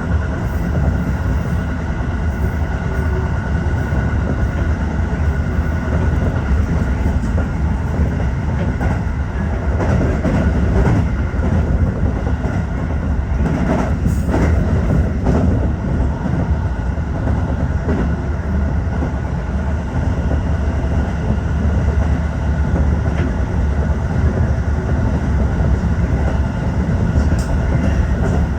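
Tokyo Metro 15000 series electric train running at speed, heard from inside the leading car: a steady rumble of wheels on rail and running gear, with a few clacks about halfway through.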